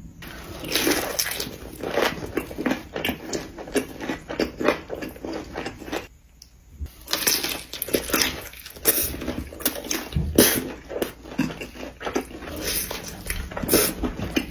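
Close-up wet chewing, smacking and slurping of saucy food, a string of irregular short mouth clicks, with a brief pause about six seconds in.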